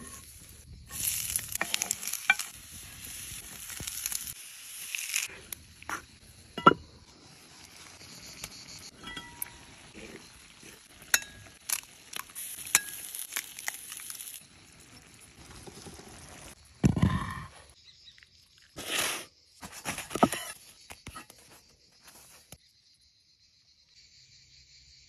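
Butter and tomatoes sizzling in a clay pan over embers, with a wooden spoon stirring and clinking against the pot. Sharp taps and knocks come at intervals, among them an egg cracked on a knife blade about twelve seconds in.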